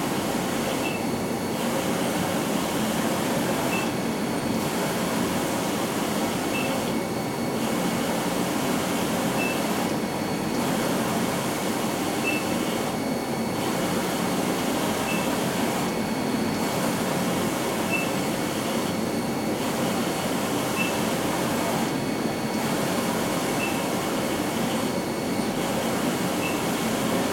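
Wide-format roll-to-roll UV inkjet printer running, its printhead carriage shuttling back and forth across the media: a steady mechanical whir and hiss. The hiss dips briefly about every three seconds, with a faint tick at a similar spacing.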